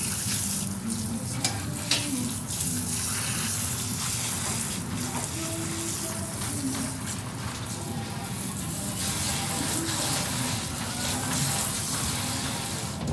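Water from a kitchen pre-rinse spray nozzle hissing steadily as it rinses a filleted pollock and splashes into a stainless steel sink.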